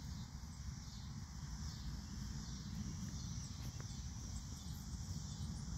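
Quiet outdoor field ambience: a low steady rumble with a faint hiss above it, and one faint tick a little under four seconds in.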